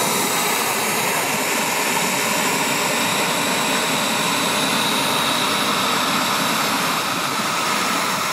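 Turbine engine of a Carf MiG-15 radio-controlled model jet running steadily in flight: an even rushing hiss with a steady high whine.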